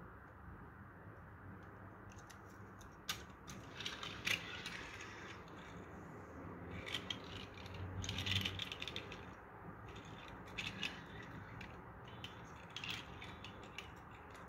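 Small diecast metal toy armored truck being set down and pushed back and forth by hand on a tabletop: its plastic wheels roll with a scraping rattle, in several short spells with sharp clicks, the loudest about halfway through.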